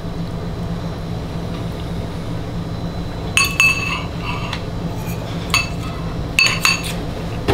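Forks and a spoon clinking against a small metal serving bowl: a series of sharp, ringing clinks starting about three seconds in, over a steady low hum.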